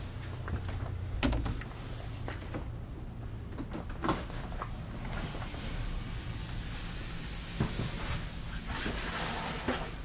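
Interior doors of a travel trailer being handled: a handful of sharp clicks and knocks, and a rushing swish lasting about a second near the end.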